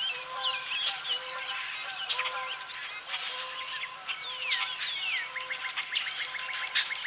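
Dense evening bird chorus, with many birds calling and singing at once. A low call repeats steadily about twice a second, and near the end a rapid ticking trill comes in.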